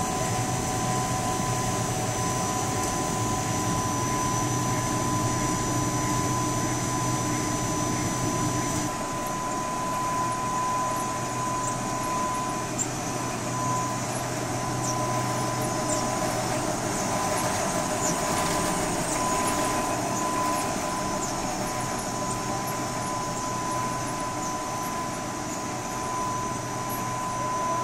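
Short-cut pasta production line machinery running: a steady mechanical hum with a constant high whine, shifting slightly about nine seconds in, with scattered faint ticks in the middle part.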